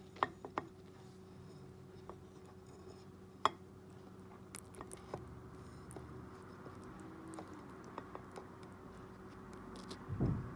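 Faint scattered clicks and light scratchy handling noises over a steady low hum, with a louder dull thump about ten seconds in.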